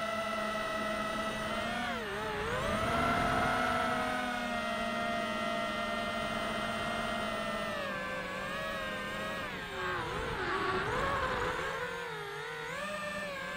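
FPV racing quadcopter's brushless motors and propellers whining, heard from the onboard camera. The pitch drops and climbs back with the throttle about two seconds in, again around ten seconds, and near the end.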